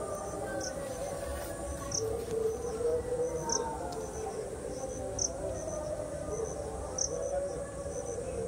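An insect chirping, likely a cricket: short, high chirps repeated through the whole stretch, a louder one about every second and a half, over a low, wavering background drone.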